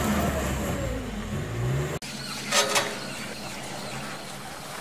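Wheel loader's diesel engine running, rising in pitch as it revs up, then cut off abruptly about two seconds in. A short swoosh follows about half a second later.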